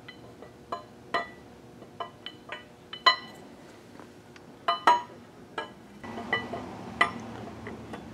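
Steel camshaft being slid into the cam bearings of a Continental F245 flathead six's block: about ten irregular light metallic clinks as it knocks against the bearings and block, the loudest about three and five seconds in. A faint low hum comes in about six seconds in.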